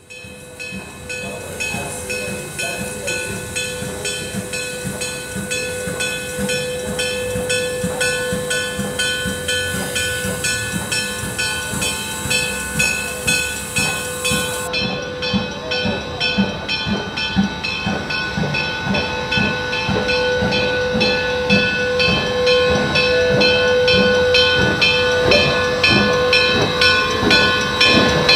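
Steam locomotive No. 1702 hissing steam, with a steady rhythmic pulsing and a steady tone running under it. The hiss and pulsing grow louder in the second half as steam blows from around the cylinders.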